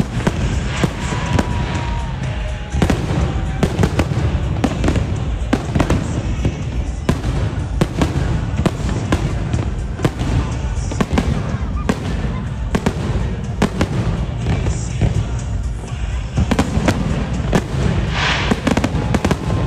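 Fireworks display: a continuous barrage of bangs and crackles over a deep rumble, with music playing underneath.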